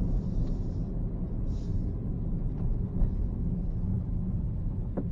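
Steady low rumble of a car's engine and tyres heard from inside the cabin while driving, with two brief faint hisses in the first two seconds.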